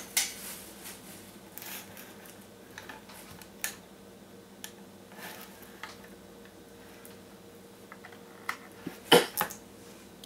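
Scattered clicks and light knocks of small equipment being handled, with a louder cluster about nine seconds in, over a faint steady hum.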